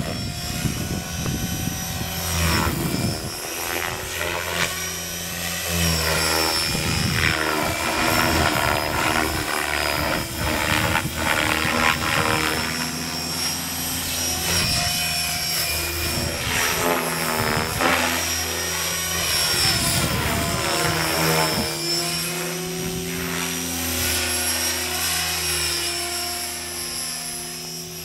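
Electric GAUI Hurricane 550 RC helicopter in flight: the motor and rotors whine with several tones that rise and fall in pitch as it manoeuvres, over a whoosh from the 550 mm main rotor blades that swells and fades.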